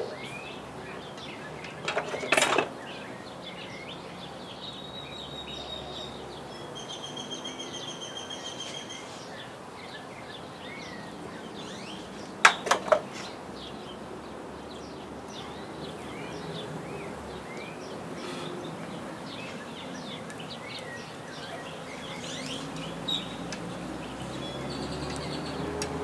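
Birds chirping over steady outdoor background noise, with a brief sharp clatter about two seconds in and two sharp clinks about twelve seconds in, made while comb is cut away and handled.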